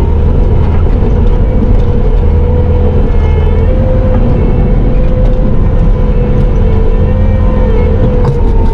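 Bobcat T650 compact track loader's diesel engine running under steady throttle, heard from inside the cab, with a deep rumble and a steady whine over it that wavers slightly in pitch.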